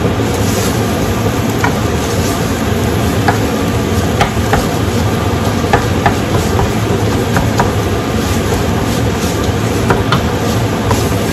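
Wooden spoon stirring thick red curry in a stainless steel stockpot, with short irregular taps and scrapes of the spoon against the pot, over a steady low rumble.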